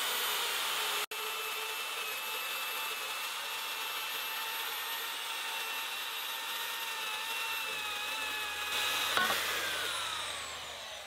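Vevor portable bandsaw cutting steel pipe: a steady motor whine with the blade rasping through the metal. About nine seconds in there is a sharp knock, then the motor winds down with a falling whine.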